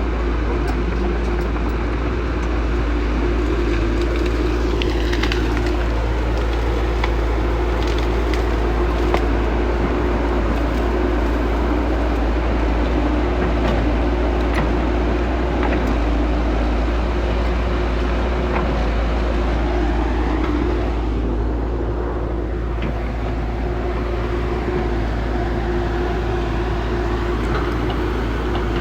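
Diesel engines of heavy earthmoving machines running steadily, a constant low rumble and hum, with the pitch sweeping down twice and scattered light clicks.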